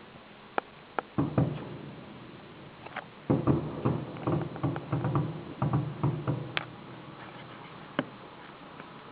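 Fireworks going off: a few sharp single cracks, then a dense run of overlapping bangs lasting about three seconds in the middle, and two last isolated cracks near the end.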